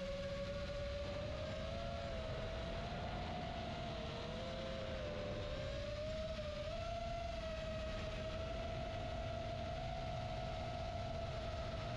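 FPV quadcopter's brushless motors and 4-inch propellers whining in flight, the pitch drifting gently up and down with throttle, over a steady low rushing noise.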